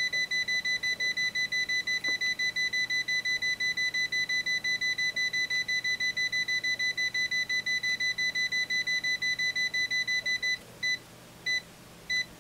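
Kaiweets ST600Y multimeter's beeper sounding a live-voltage alert: a high-pitched beep pulsing rapidly, several times a second. About ten and a half seconds in it slows to about one beep every half-second or so, as the detected level drops from high to low with the test voltage turned down.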